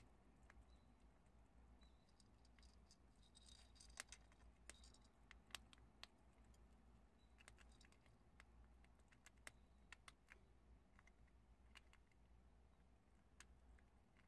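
Prairie dogs chewing dried chickpeas: faint, sparse crunching clicks at an uneven pace, busiest a few seconds in and again near the middle.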